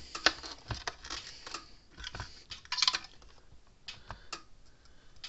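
Irregular light clicks and taps of hand work: an electric fence charger's circuit board being set back down into its case and fitted in place, with a sharper knock near the start and a brief clatter about three seconds in.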